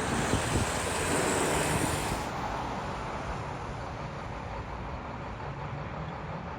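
Steady vehicle rumble with road noise. A high hiss stops abruptly about two seconds in.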